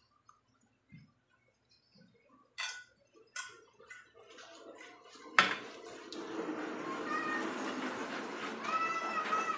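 A fork clinks a few times against a ceramic plate. About halfway through comes a sudden knock, then a steady hiss, and over it a few short rising-and-falling animal calls near the end.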